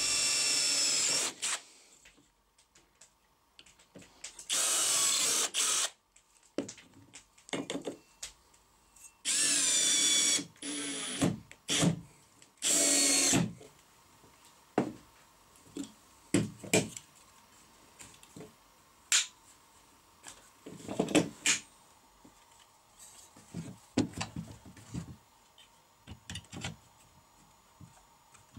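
Cordless drill/driver driving screws through steel brackets into a wooden block, in five short runs of about a second each during the first half. After that come scattered clicks and knocks of metal and wooden parts being handled and fitted together.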